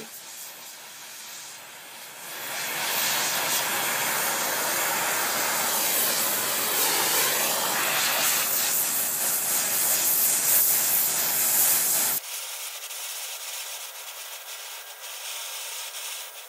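Oxyacetylene torch with a slightly reducing flame hissing steadily as it preheats a steel plate for bronze brazing. It gets louder about two and a half seconds in and drops suddenly to a quieter hiss about twelve seconds in.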